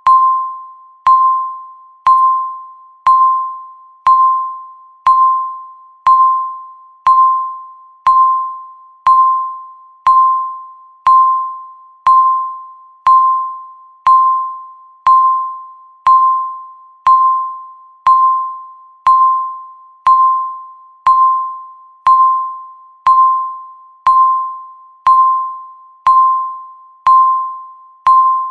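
Countdown timer beep sounding once a second, each beep marking one second left. Each is the same clear single tone that starts sharply and fades away before the next.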